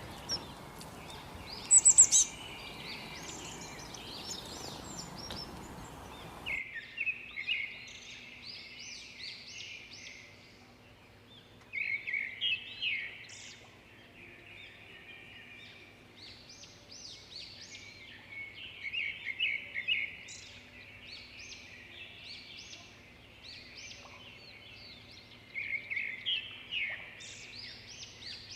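Small songbirds chirping and singing in quick repeated phrases that come in clusters every few seconds. A background hiss under the calls stops abruptly about six seconds in, as one recording gives way to another.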